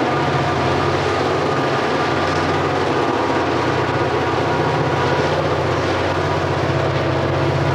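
Diesel-hauled freight train crossing a steel trestle: a steady drone of locomotive engines over the running noise of the freight cars.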